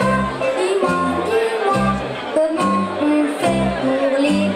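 A recorded pop song played back over loudspeakers: a singer's melody over a steady bass beat.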